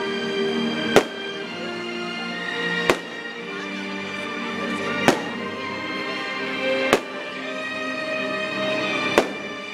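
Aerial fireworks shells bursting with sharp bangs, five of them about two seconds apart, over steady music playing throughout.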